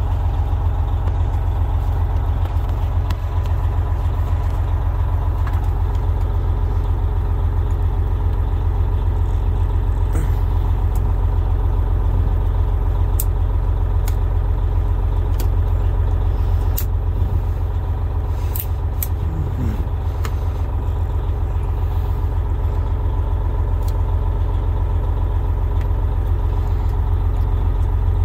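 Freightliner Coronado semi truck's diesel engine idling steadily, with a few sharp clicks as a knife or screwdriver pries at the dashboard wiper switch.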